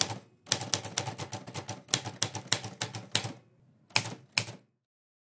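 Typing sound effect of quick typewriter-style key clicks, in rapid runs with short breaks. Two single clicks follow about four seconds in, and then the typing stops.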